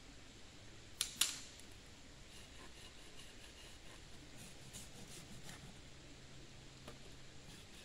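Dry wood snapping as firewood is broken up at a campfire ring: two sharp cracks about a quarter second apart, followed by faint scattered clicks and ticks of sticks being handled.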